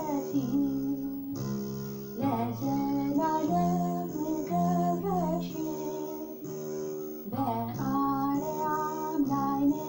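A woman singing an Amharic Orthodox hymn (mezmur) to her own begena accompaniment, the large Ethiopian lyre plucked in low, buzzing notes under her voice.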